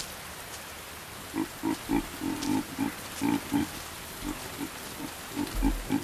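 Chacma baboons giving a run of short, low grunts, about two or three a second, starting about a second and a half in, over the steady hiss of falling rain.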